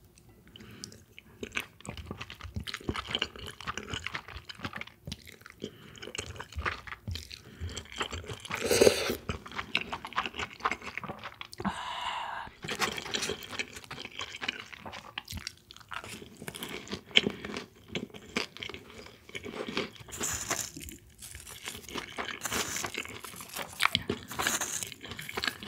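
A person chewing and crunching food close to the microphone, with wet mouth clicks throughout and a louder bite about nine seconds in.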